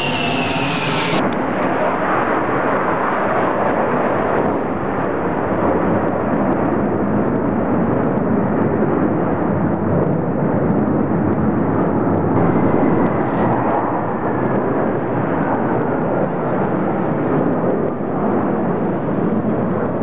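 Beriev Be-200 jet amphibian's engine whine falling in pitch as it passes, cut off about a second in, then a steady loud roar of jet fighters flying in formation.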